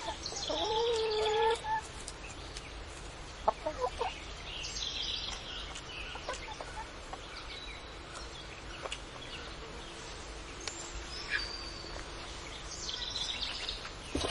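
Chickens clucking on a farm. A drawn-out hen call comes about half a second in and a quick run of clucks near four seconds, while higher chirping calls come and go over a steady background hiss.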